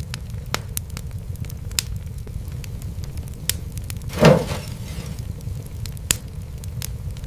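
Wood fire crackling in a fireplace: scattered sharp pops over a steady low rumble, with one louder, longer burst of crackle a little past halfway.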